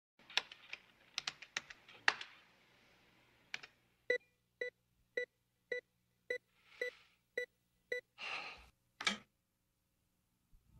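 A few quick keyboard-like clicks, then a row of identical short electronic beeps, about two a second, with a couple of brief hissing bursts near the end.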